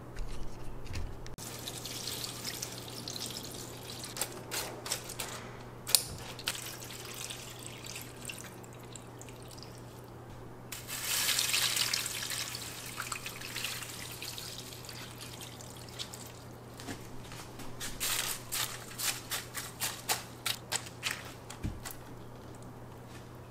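Water poured from a glass measuring cup into stainless steel trays of dried aster scaber to rehydrate it, loudest a little past the middle. Toward the end a hand presses through the wet dried greens in a run of crackles and rustles.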